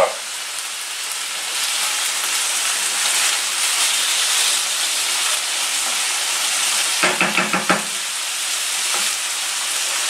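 Diced meat sizzling in hot oil in a frying pan while a wooden spatula stirs it, turned so it browns evenly and does not burn. The sizzle is a steady hiss throughout.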